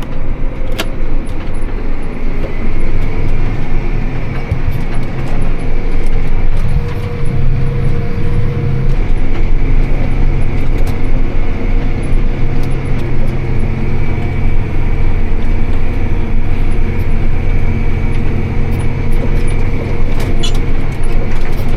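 Tractor engine running steadily under load while pulling a round baler through the hay field, with a thin steady whine above the engine.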